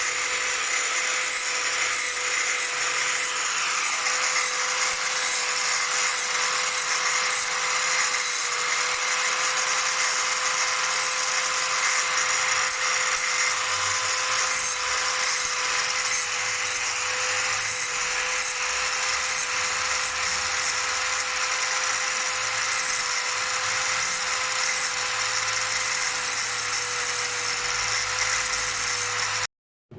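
Small electric grinder running steadily and grinding metal, wearing down the mushroomed stem tip of a motorcycle engine valve so the valve can slide out through its guide without scoring it. It stops abruptly near the end.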